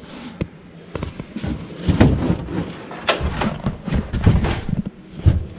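Irregular knocks, clunks and scuffing from things being handled in a car's boot, with several heavier thuds.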